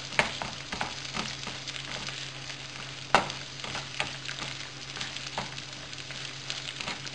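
Eggs and boiled potato cubes sizzling in a frying pan while a wooden spatula stirs and scrapes them, with sharp taps of the spatula against the pan. The loudest tap comes about three seconds in.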